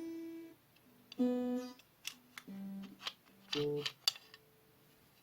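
Music: a few separate pitched notes, each held about half a second and changing pitch from note to note, with a few light clicks between them.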